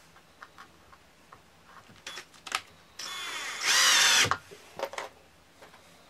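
Power drill running once for about a second, about three seconds in, starting softly and then running louder with a wavering pitch as it works at a marked screw hole in wood. Light handling clicks before and after.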